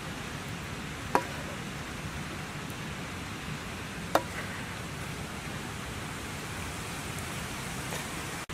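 Steady, even background hiss, with two short sharp clicks about three seconds apart.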